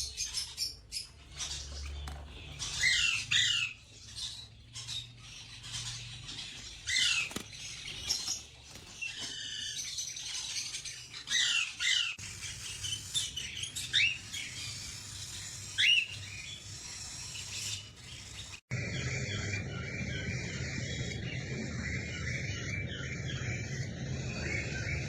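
Parrot calling: a run of short chirps, squawks and quick whistles that glide up and down. Just after three quarters of the way through, the sound cuts abruptly to a steady, dense chatter.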